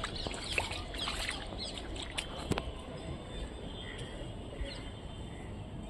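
Birds chirping, with many short calls crowded into the first three seconds and fewer after, over a steady low rumble.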